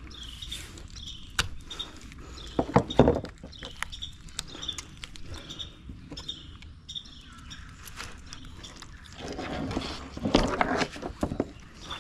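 Birds chirping over and over in the background, while a large sheepshead's jaw is worked with a knife and pliers on a plastic cutting board. The work gives sharp knocks and clatter, loudest about three seconds in, and a burst of scraping and crunching near the end.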